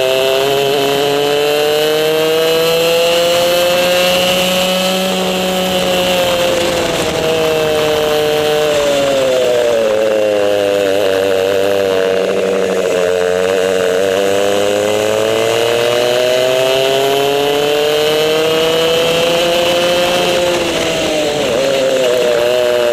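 Racing kart engine recorded on board, revving high on the straights and dropping for the corners: the pitch climbs over the first five seconds, falls away around eight to ten seconds in, climbs again until about twenty seconds, dips briefly and rises once more near the end.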